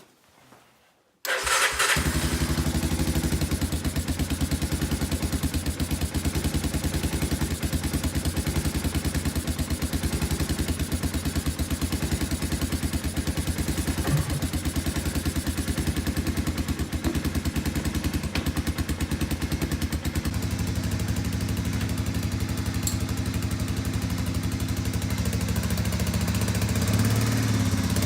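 Honda 250SX ATC's single-cylinder four-stroke engine starting cold about a second in, then running steadily at a fast idle, its note shifting lower about twenty seconds in.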